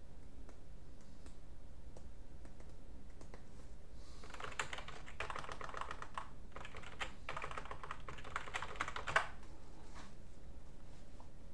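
Typing on a computer keyboard to enter a login password: a quick run of keystrokes lasting about five seconds, ending with one sharper keystroke.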